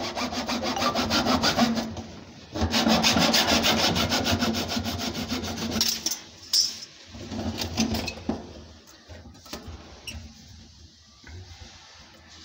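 Corrugated plastic sink waste hose being sawn through to length: a fast rasping in two spells, the first about two seconds long, the second from about two and a half to six seconds in, followed by a few fainter scrapes.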